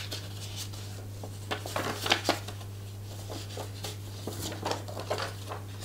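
Paper rustling and crinkling as a folded user-guide leaflet is opened out by hand, a run of short scattered rustles busiest in the middle, over a steady low hum.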